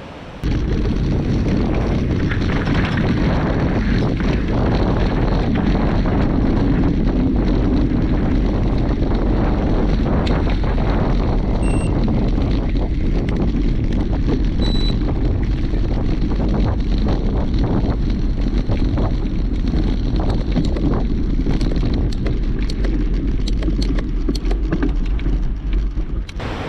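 Heavy wind rumble on the microphone of a moving mountain bike, with frequent short knocks and rattles from the bike rolling over rough ground. It starts abruptly and stops just before the end.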